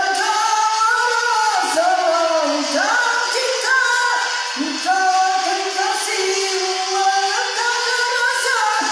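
Music with singing: a Malay love song, its melody made of long held notes that slide between pitches, with little bass.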